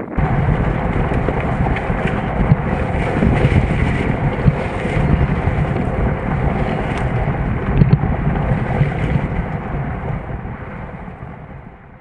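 A jeep driving, heard from inside the cab: steady engine and tyre rumble with wind buffeting the microphone. It starts abruptly and fades out near the end.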